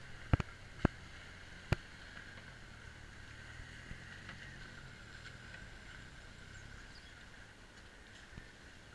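Faint, steady engine noise of a lifted Toyota pickup crawling slowly through a mud hole. Four sharp clicks come within the first two seconds.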